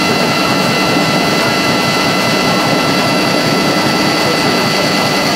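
An antique generator rig running steadily at speed: a loud, even mechanical noise with a steady high-pitched whine over it.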